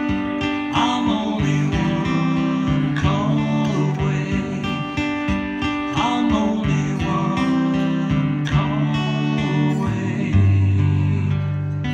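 Acoustic guitar strumming chords without singing. About ten seconds in, a low chord is struck and left ringing.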